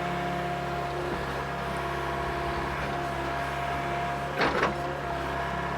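Mini excavator running steadily, its diesel engine and hydraulic pump droning with a steady whine, with one short louder burst about four and a half seconds in.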